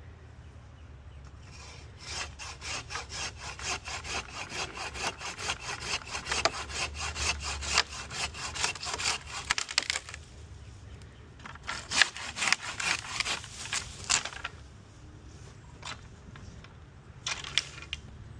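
Hand saw cutting through a tree branch in quick back-and-forth strokes, in two spells with a short pause about ten seconds in, then a few scattered strokes near the end.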